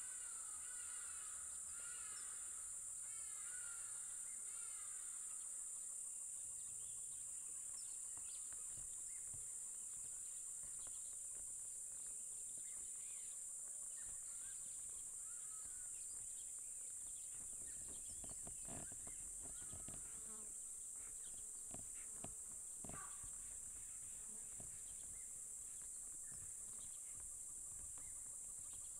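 Steady, high-pitched drone of insects in the bush, with birds chirping over it during the first few seconds. A few short snaps and cracks come a little past the middle.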